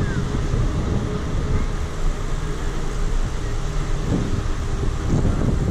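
Wind buffeting an action camera's microphone while riding a bicycle along a paved path: a steady low rumble and rush, with two stronger gusts near the end.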